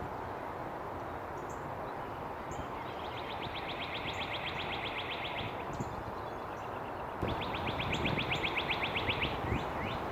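Songbirds singing: two long, fast trills of evenly repeated notes, each about two and a half seconds, one about three seconds in and one about seven seconds in, with short high chirps between, over a steady background noise.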